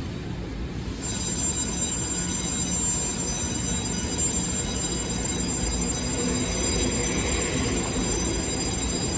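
Train running with a steady low rumble, joined about a second in by a steady high-pitched ringing tone that holds on.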